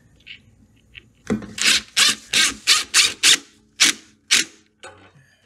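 A run of rasping, rubbing strokes, about three a second, starting about a second in: a gloved hand working the rubber drive belt against the Cub Cadet's transmission pulley and its guards.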